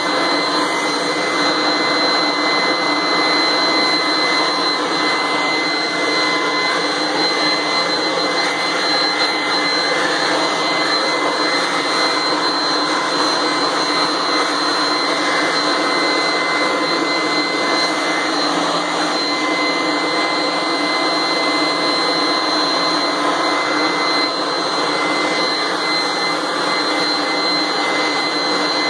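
Craftsman leaf blower running steadily at full power: a dense rush of air with a steady high whine on top, blowing dust out of an open computer case.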